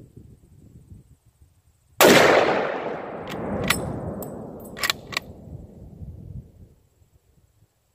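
A single .416 Ruger rifle shot from a Ruger Guide Gun, very loud and sharp, about two seconds in, followed by a long rolling echo that fades over about five seconds. Partway through the echo come a few sharp metallic clicks as the bolt is worked for the next round.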